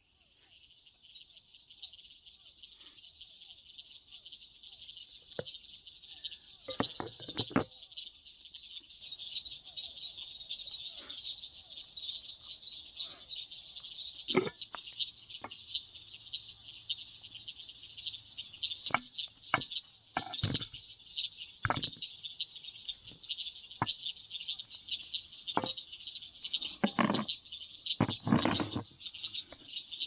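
A chorus of frogs and insects making a steady high trilling, with scattered knocks and clicks of things being handled.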